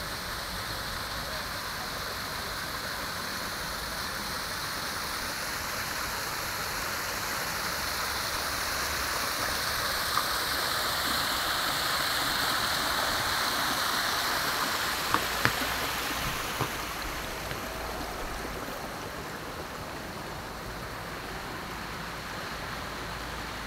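Water splashing down a small artificial waterfall over a stone wall into a channel: a steady rushing hiss that grows louder toward the middle and eases off near the end. A few sharp clicks stand out just past the middle.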